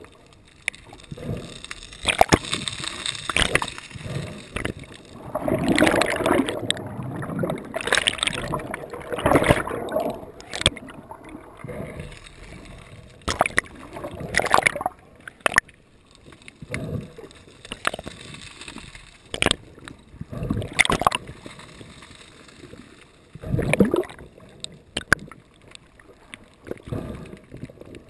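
Sea water splashing and sloshing close to the microphone in irregular surges, with a few louder rushes.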